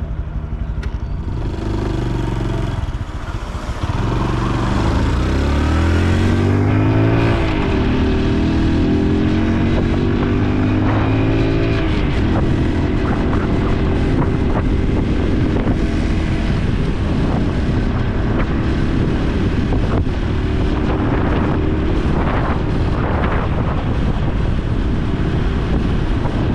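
Honda Super Cub C125's 125 cc single-cylinder four-stroke engine under way. The revs dip, then climb twice with a gear change between, and settle into a steady cruise.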